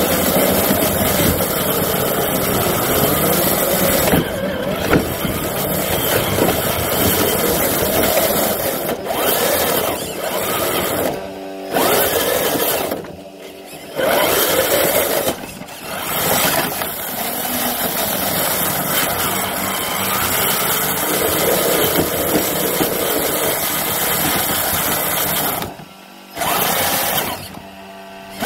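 Traxxas TRX-4 rock crawler's electric motor and gearbox whining as it drives, the pitch rising and falling with the throttle. The sound stops abruptly several times for a second or so, then picks up again.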